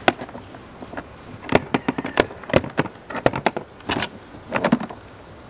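Plastic latches of a hard rifle case being unsnapped, with the case being handled: a series of sharp clicks and clacks, some in quick pairs and clusters.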